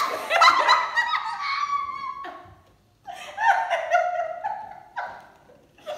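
Women laughing hard in high-pitched bursts, with a brief break a little before halfway before the laughter picks up again.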